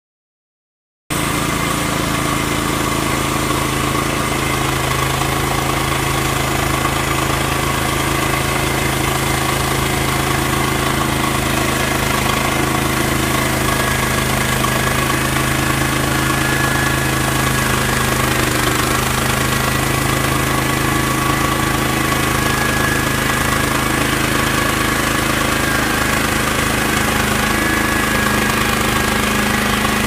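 Norwood LumberMate LM29 portable bandsaw mill running steadily, its engine driving the band blade as the saw head is pushed through a squared log. The sound starts suddenly about a second in and holds at an even level.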